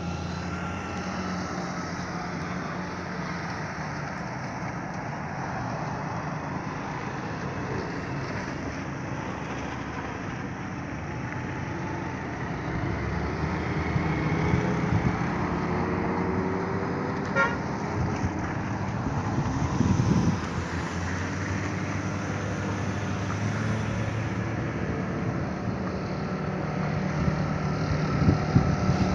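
Road traffic climbing a steep mountain road: a heavy truck's engine labouring uphill, mixed with passing cars and motorcycles, with horn toots. The engine drone gets louder about halfway through as the vehicles near, and is loudest about two-thirds of the way in.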